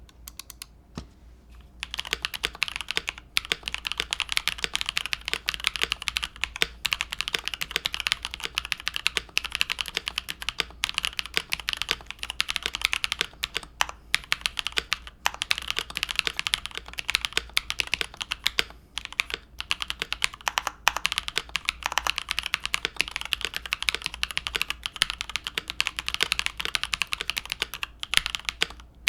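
Typing sound test on a mechanical keyboard fitted with stock, unlubricated Singularity linear switches (aluminum-plated housings, POM long-pole stems), a steady fast run of keystrokes bottoming out, starting about two seconds in.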